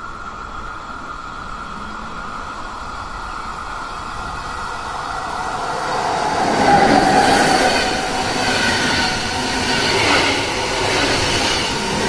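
Swiss SBB electric passenger train, a Re 460 locomotive hauling coaches, approaching and passing close by. It grows steadily louder, is loudest about seven seconds in as the locomotive goes past, then the coaches' wheels keep rolling by on the track.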